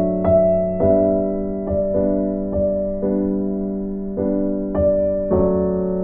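Background music: soft piano chords, new notes struck about every half second to second and left to ring.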